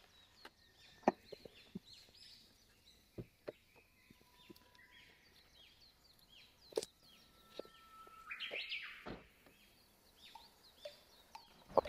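Birds chirping repeatedly, a steady string of short calls. A few sharp clicks and knocks are scattered through it, and a brief rustle comes about eight seconds in.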